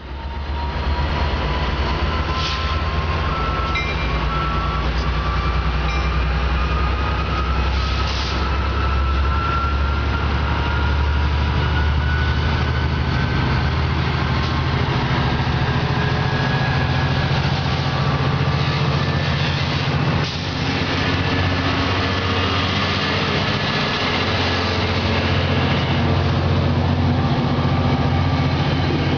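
Metrolink commuter train led by a diesel locomotive approaching and running past with its bilevel coaches, a steady low engine drone throughout. Over roughly the first half, a thin whine rises slowly in pitch.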